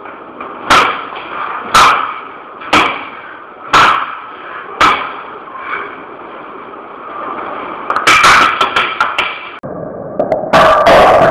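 Sharp thuds of blows struck against a wall: five hits about a second apart, a pause, then a rapid flurry of hits near the end.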